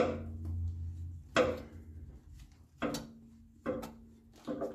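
A wrench working at the oil filter of a 7.3 diesel: five sharp metallic knocks and clanks, roughly a second apart, as the filter is worked loose.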